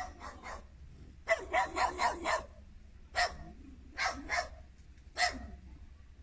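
A dog barking repeatedly in short groups: a few barks at first, a quick run of about five a little over a second in, then single and paired barks spaced out until near the end.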